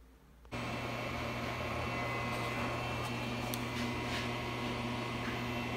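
Syil X7 CNC mill running with a steady hum and fan-like noise while its table is jogged under a dial test indicator, starting suddenly about half a second in, with a couple of faint clicks midway.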